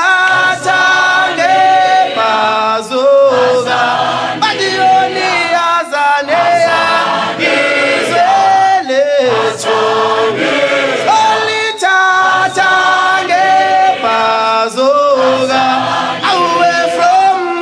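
A group of voices singing a song together like a choir, in phrases of long held notes.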